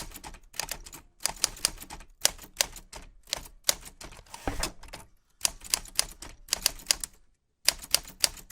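Typewriter keys struck one after another in quick runs of sharp clicks, with a short pause near the end.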